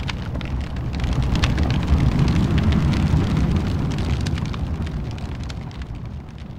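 Sound effect of burning flames for an animated logo: a dense low rumble with many small crackles, swelling about two seconds in and then slowly dying down.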